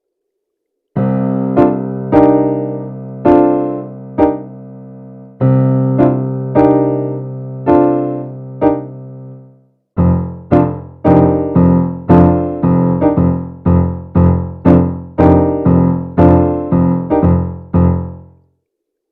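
Electric piano sound from a Roland Verselab MV-1 playing: a held low chord with struck melody notes over it, a brief pause, then a run of repeated chords about two a second that stops shortly before the end.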